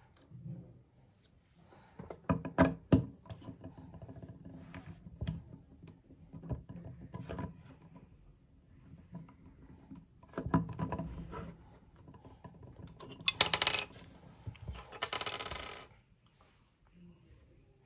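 Hard plastic clicks and knocks as an electric toothbrush is handled and stood on its charging base, with a few seconds of rustling near the end.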